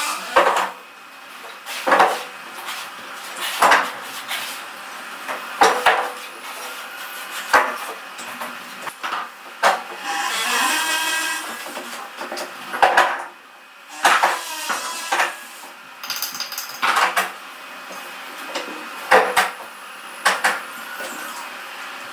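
Flat stone pieces clinking and knocking against one another as they are picked from a pile and set for wall cladding: sharp, ringing knocks every second or two, with a longer scraping sound about ten seconds in.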